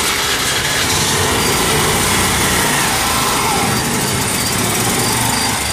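Small commuter motorcycle engines running loudly as the bikes pull away.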